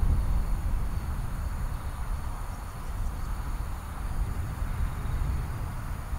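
Distant Boeing 777-300ER on final approach, its GE90 engines heard as a steady low rumble with a faint hiss above it.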